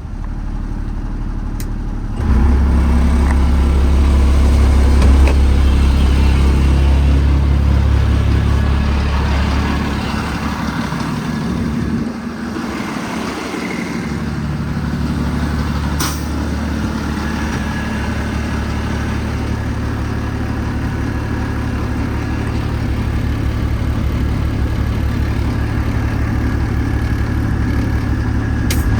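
2009 Kenworth T370's PACCAR PX-6 six-cylinder diesel engine running steadily. Its note steps up louder about two seconds in and dips briefly a little before halfway.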